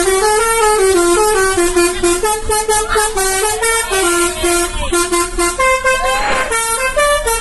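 A cartoon tune played in a bright, honking horn-like tone, stepping quickly from note to note.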